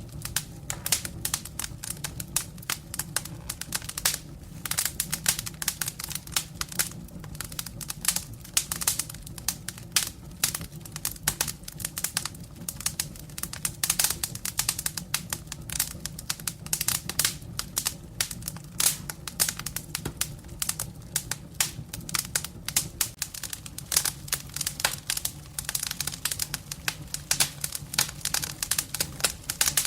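Firewood burning in a fireplace: dense, irregular crackling with sharp pops, over a steady low rumble from the fire.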